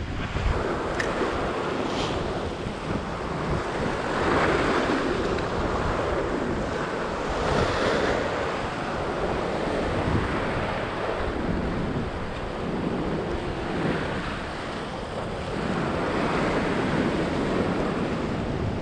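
Ocean surf surging and washing against a granite rock ledge, swelling and easing every few seconds, with wind buffeting the microphone.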